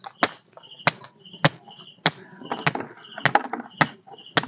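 Steady chopping or knocking strokes by hand, about one every two-thirds of a second, around eight in all, with a short high chirp repeating between the strokes.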